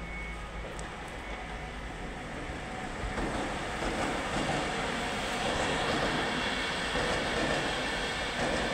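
Stadler FLIRT electric multiple unit (ER160) running on the track, a continuous rumble that grows louder about three seconds in, with faint steady high-pitched tones over it.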